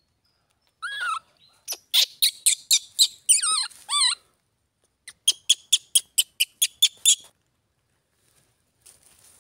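Baby macaque screaming: a few high cries that waver and fall in pitch, mixed with short shrill calls, then a quick run of about a dozen short calls, around five a second, stopping about seven seconds in.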